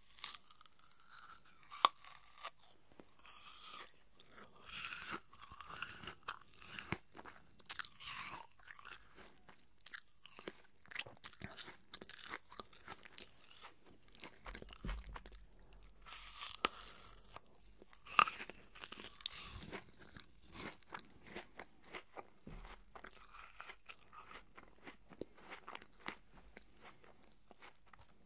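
Close-miked chewing of pieces of a red apple: irregular crisp crunches throughout, with two especially sharp crunches, about two seconds in and a little past the middle.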